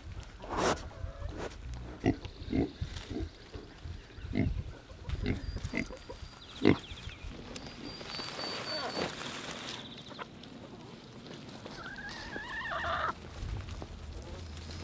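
A pig grunting and snuffling right at the microphone, a run of short separate grunts. After that it is quieter.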